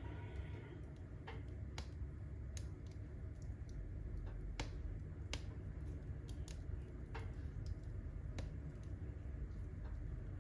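Firewood burning in a fireplace, crackling with irregular sharp pops and snaps.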